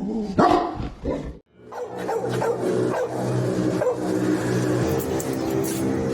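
Dog barking and yipping: a few sharp barks at the start, then, after a brief break, more short yips over a steady hum.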